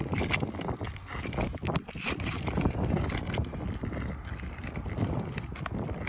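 Asphalt roof shingles being pried up and scraped by a roofing tool, a run of irregular clicks, scrapes and tearing crackles, with wind rumbling on the microphone.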